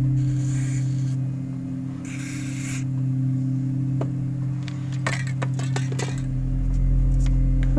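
Metal parts of a Daiwa Crossfire 8000 spinning reel scraping twice, then a quick run of sharp clicks as they are handled during repair, over a steady low hum.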